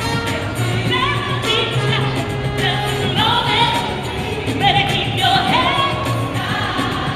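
Live gospel vocal group singing with band accompaniment: drawn-out sung lines gliding and wavering with vibrato over a steady bass.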